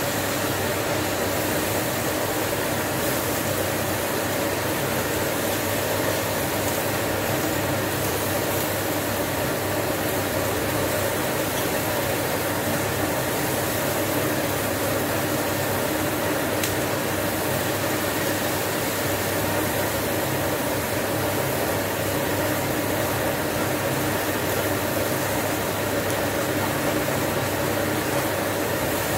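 Cooker extractor fan running steadily with a hum, over pork frying in a wok.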